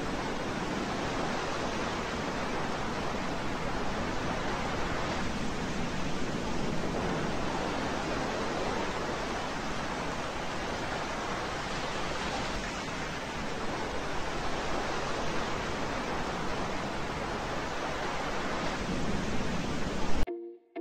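Whitewater of a long machine-made wave in a surf pool, rushing steadily, with a brief louder surge just before it cuts off suddenly near the end.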